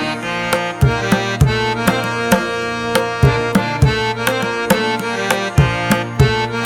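Background music: a rhythmic drum pattern with frequent hits over sustained melodic instrument tones.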